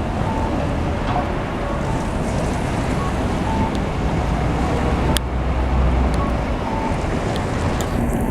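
City street trams and road traffic running, a steady low rumble that swells about five seconds in, with a sharp click just then.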